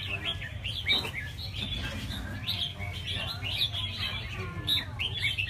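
Many caged red-whiskered bulbuls singing at once, their short chirpy phrases overlapping, over a steady low rumble, with a single click about a second in.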